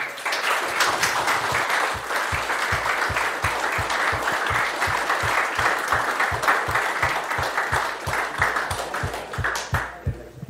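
Audience applause. Over it, one person's close, steady hand claps at about four a second, stopping near the end.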